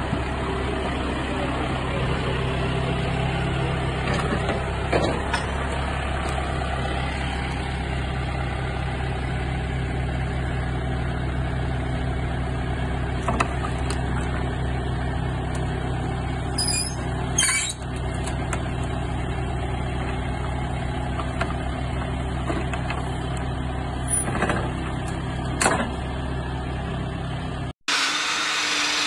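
Farm loader tractor's diesel engine running steadily, with a few short clanks from the load on its forks.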